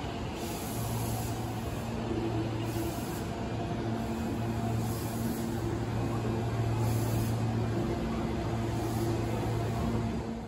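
A vehicle running close by: a steady low mechanical hum with some rumbling noise, its tones swelling and fading a little, cutting off at the end.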